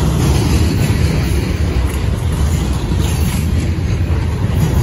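Freight cars of a slow CSX train rolling past close by: a steady, heavy low rumble of steel wheels on the rails.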